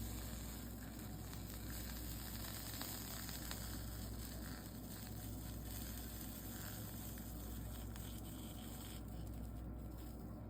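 Soldering iron melting solder along the copper-foiled seams of a stained-glass piece, the flux sizzling steadily over a low hum. The solder is running through the seam too easily, which she thinks means the iron is set a little too hot.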